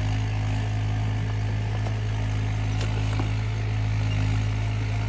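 Mahindra 575 tractor's diesel engine running steadily at a constant speed, an even low hum that holds without change.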